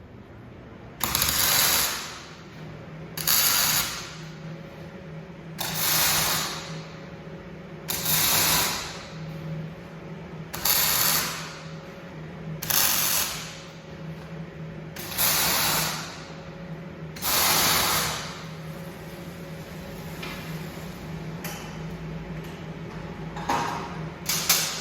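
Electric welding in eight short runs of about a second each, with pauses of a second or so between them, over a steady machine hum.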